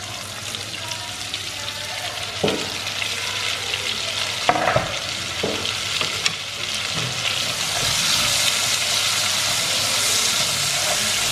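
Chopped onion, carrot and garlic sizzling in hot oil in a cast iron pot as they are sautéed, with a few short knocks in the middle. The sizzle grows louder about two-thirds of the way through as the vegetables are stirred with a wooden spoon.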